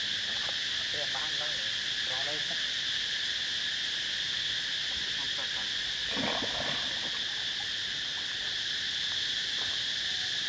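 Steady, high insect chorus running throughout, with a few faint short wavering calls under it and a brief burst of noise about six seconds in.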